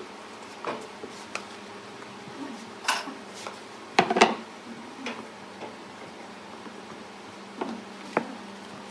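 Scattered short knocks and clatter of wood handled on a workbench: a wooden glue stick set down and glued wooden blocks gripped and shifted. The loudest is a quick cluster of knocks about four seconds in, with two more near the end.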